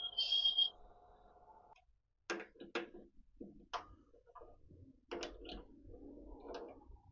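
Metal lathe cutting, with a high steady whine from the tool on the metal ring that stops under a second in. The lathe's hum cuts out at about two seconds. Then come a series of sharp clicks and knocks as hands work the metal ring on its arbor in the lathe chuck.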